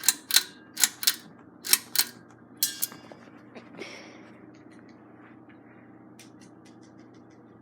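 Hunter Northshore ceiling fan's pull-chain speed switch being worked: a quick series of sharp clicks and chain rattles over the first three seconds. After that the fan motor hums steadily on medium speed.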